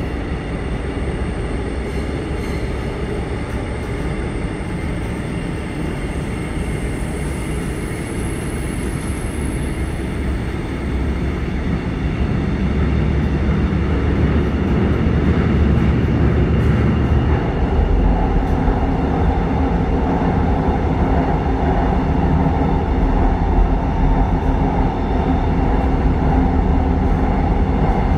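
Cabin noise of a Korail commuter electric train running: a steady rumble of wheels on the track and the traction motors, growing louder about halfway through.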